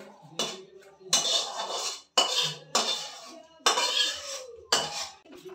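Metal kadhai and cooking pans clanking and scraping against a steel gas stove as the hot pot is lifted off and set down: about six separate clatters.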